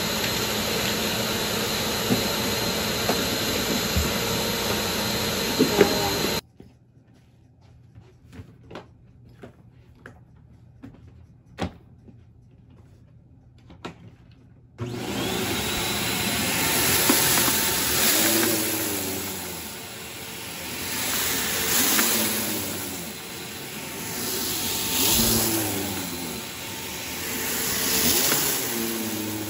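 Bissell PowerGroom bagless upright vacuum cleaner running steadily, then stopping abruptly about six seconds in. A few clicks and knocks follow in the quiet. The vacuum starts again suddenly about halfway through and is pushed back and forth over carpet, its sound swelling and falling about every three seconds.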